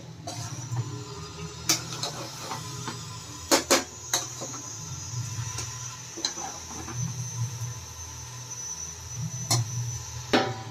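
Metal spoon stirring rice in a pressure cooker, scraping and knocking against the pot with a few sharp clinks, over a steady low hum.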